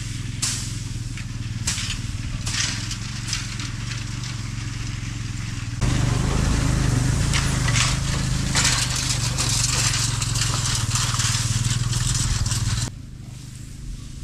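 A cargo motor tricycle's engine running steadily while it tows a spoked-wheel hay rake, with dry hay rustling and scraping under rakes and forks. The engine gets louder about six seconds in and drops away sharply near the end.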